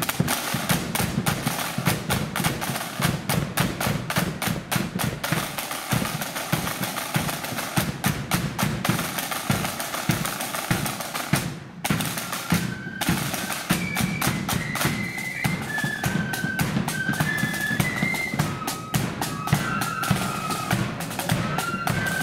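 Marching flute band's side drums and bass drum playing a rapid beat together. After a brief break a little past halfway, the flutes come in with a melody over the drums.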